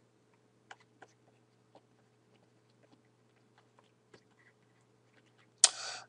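Faint, scattered clicks and taps of a stylus on a tablet screen while words are handwritten, over a steady low hum. Near the end, a short loud rush of breath.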